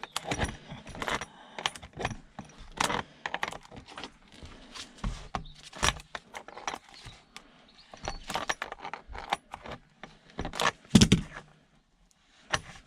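Irregular metallic clicking, clinking and knocking as a self-adjusting wrench works loose small metal parts while an electrical item is taken apart for scrap, with a louder knock near the end.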